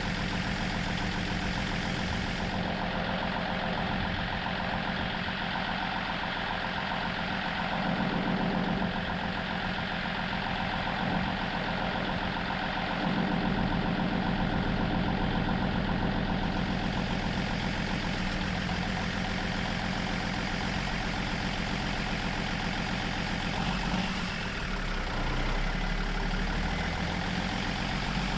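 Big truck's diesel engine idling steadily, with a slight change in its low note near the end.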